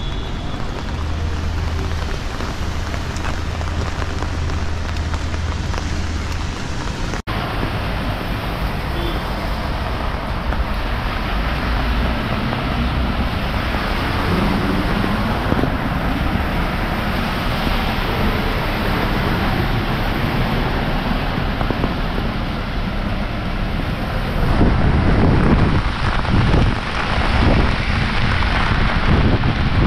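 Heavy rain pouring steadily, with a low steady hum under it for the first few seconds. From about twenty-four seconds in, it grows louder with gusts of wind buffeting the microphone.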